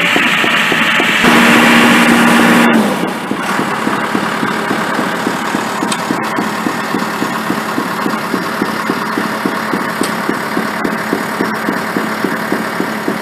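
Heavy construction machinery engine running steadily, with a held hum for the first few seconds, then an even pulse about four times a second.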